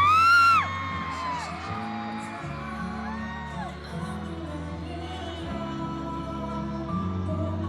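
Music: a loud pitched glide that rises and then drops, cutting off about half a second in, followed by softer music of held low notes with a few short sliding higher notes.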